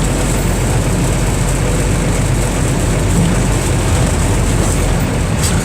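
Mercedes-Benz OF 1318/51 bus's diesel engine running steadily, with a couple of short clicks near the end.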